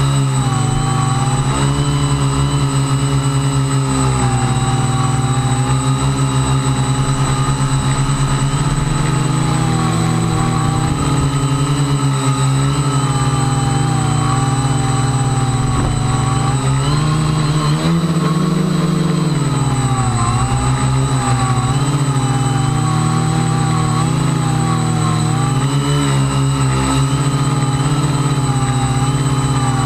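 Electric quadcopter motors and propellers whining steadily, the pitch wavering up and down as the motors correct against strong gusts and rising briefly about eighteen seconds in. Wind buffets the microphone underneath.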